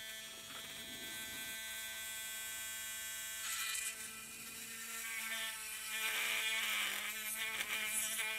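Small handheld battery rotary tool whirring steadily as its bit drills a hole into hard plastic. It grows louder and rougher from about five seconds in.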